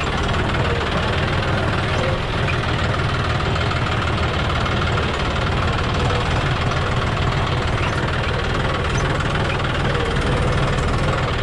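John Deere 5065E tractor's three-cylinder diesel engine running steadily as the tractor drives along, heard from the operator's seat.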